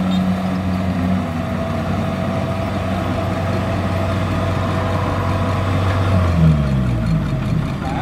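Kubota DC-70Plus combine harvester's diesel engine running steadily with a steady higher whine above it, then the engine pitch falls over the last two seconds as it slows down.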